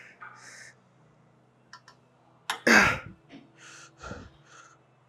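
A weightlifter's breathing while straining through a heavy set. One loud, forced exhale comes about two and a half seconds in, followed by a few quicker hissing breaths.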